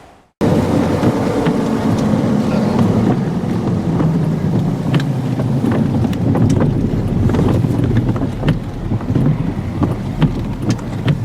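Strong storm wind blowing hard across the microphone, a steady rumbling rush with scattered sharp ticks striking through it.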